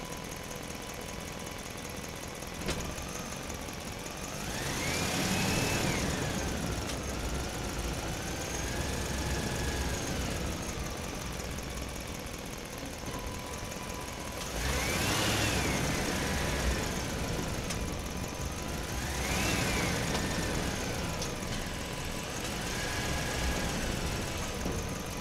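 Small electric motors of radio-controlled model construction vehicles running, with a whine that rises and falls in pitch three times as the motors speed up and slow down.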